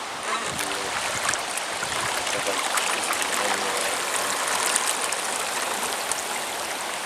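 Steady rush of river water, with many small splashes.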